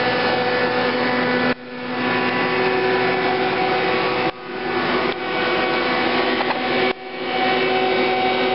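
Steady machinery drone with several steady hum tones, dipping sharply and swelling back three or four times.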